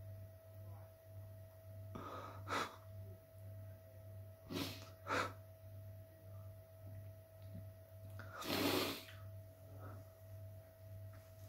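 A man crying quietly, with a handful of short sniffs and shaky breaths and a longer one about two-thirds of the way through.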